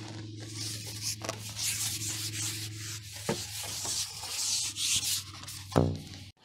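A carbon fishing pole being drawn back through the angler's hands while a hooked fish is played: a continuous rubbing, hissing slide with a few knocks, the loudest near the end, over a low steady hum. It cuts off suddenly at the end.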